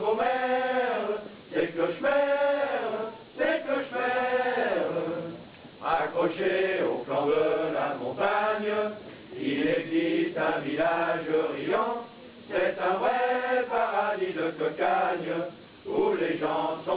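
Men's voices singing a chant-like song in phrases of a second or two, with short pauses between them.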